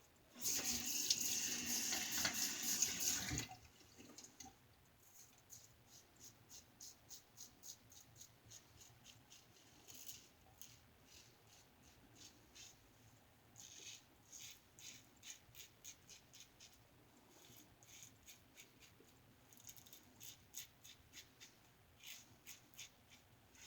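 A sink tap runs for about three seconds, then a razor fitted with half a Wizamet double-edge blade scrapes through lathered stubble in clusters of short, quick strokes on an against-the-grain pass.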